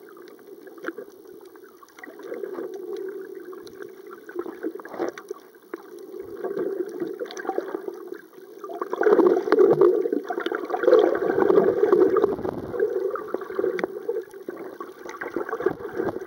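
Muffled gurgling and sloshing of water recorded by a camera held underwater, with scattered small clicks; it grows louder about nine seconds in for a few seconds, then eases a little.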